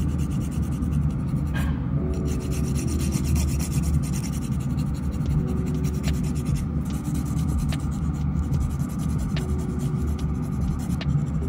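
Nail file rasping in quick repeated strokes across the free edge of a fingernail as the nail is shortened, over a steady low hum.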